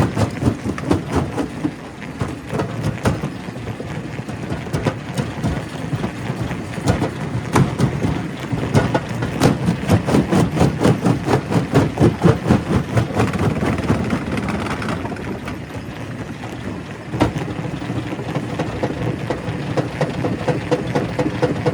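Primary rock crusher running, with a dense, rapid clatter of rock knocking and breaking over a heavy machine drone. The clatter eases for a moment past the middle, then picks up again suddenly.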